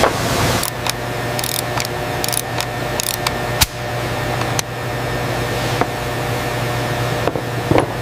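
Steady mechanical hum with several sharp metallic clicks, most in the first half and one near the end, from an AR-15 rifle being assembled at a workbench.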